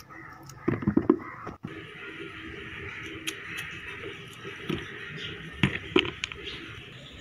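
Cut lemon halves knocking into a plastic bucket, in two short clusters of thuds about a second in and again near six seconds, over a faint steady hiss.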